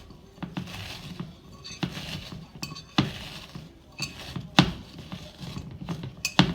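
Doritos tortilla chips being crushed in a glass container: crackly crunching with irregular sharp clinks of the crushing tool against the glass, five of them loud.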